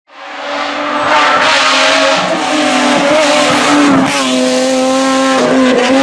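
Naturally aspirated Nissan VQ35 3.5-litre V6 race engine of a Renault Megane Trophy running hard at high revs, its pitch dipping briefly about two and four seconds in. The sound cuts in abruptly and is at full level within a second.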